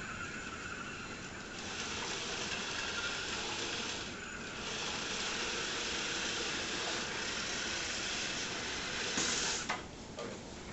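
Roomba robot vacuums running, a steady high hiss. It dips briefly about four seconds in and swells to a louder burst just before it drops off near the end.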